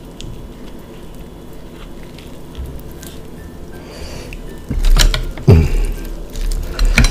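Close-up eating of king crab legs: a quiet stretch of faint shell handling, then loud sharp cracks and slurping sucks about five seconds in and again near the end as crab meat is pulled from the shell and eaten.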